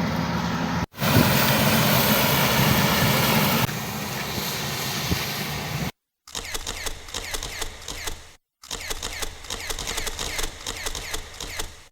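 FM World 102 HP combine harvester running steadily, heard in short spliced pieces that cut off abruptly. After about six seconds it gives way to a different, choppier sound of rapid clicks.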